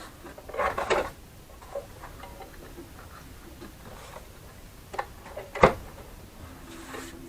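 Scattered clicks and knocks of small parts and tools being handled on a workbench. There is a cluster just under a second in and a sharp knock about five and a half seconds in.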